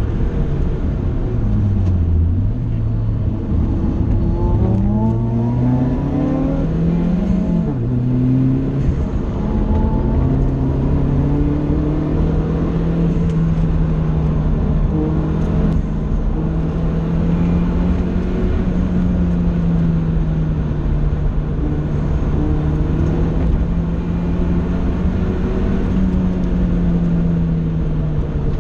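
Vauxhall VX220 Turbo's turbocharged 2.0 four-cylinder engine heard from inside the cabin at speed on track. The note falls low about two seconds in, climbs as the car accelerates, drops sharply at a gear change about eight seconds in, climbs again, then holds a fairly steady, gently wavering pitch, with road and wind noise underneath.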